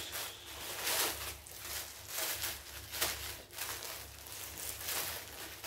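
Plastic mailer bag rustling and crinkling in the hands in irregular bursts as it is opened and a folded T-shirt is pulled out of it.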